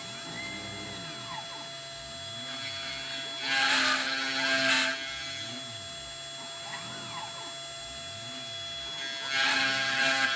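Eleksmill desktop CNC mill cutting particle board. The spindle motor runs with a steady whine while the stepper motors rise and fall in pitch as the axes move. Twice, about three and a half seconds in and again near the end, a louder noisy stretch of cutting comes through.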